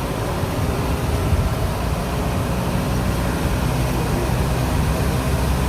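Steady engine and road noise inside the cabin of a moving coach bus: a continuous low engine rumble under an even wash of road noise.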